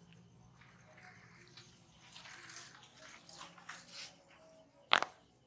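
Hands rubbing and working over skin and hair during a head massage, soft rustling, then one sharp crack about five seconds in.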